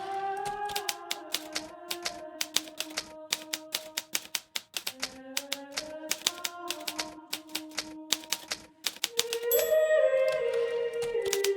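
Hermes Baby manual portable typewriter being typed on: quick key strikes, several a second, with a couple of brief pauses, over soft background music with long held notes.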